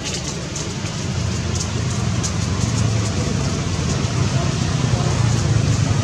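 Low, steady rumble of a motor vehicle, growing louder.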